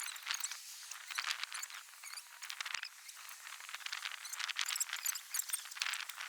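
Car jack being cranked up to lift the car, giving a dense, irregular run of scraping clicks and rattles.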